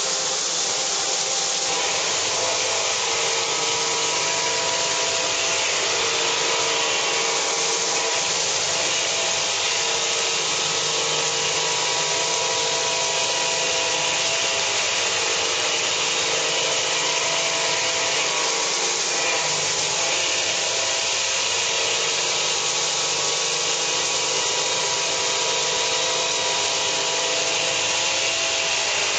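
Mitsubishi MH-50C horizontal machining center milling a metal block under flood coolant: a steady cutting noise carrying several constant tones from the spindle and cutter, mixed with the hiss of coolant spray.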